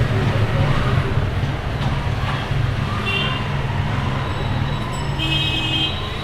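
Steady low rumble of road traffic, with two short high-pitched tones, one about three seconds in and another a little after five seconds.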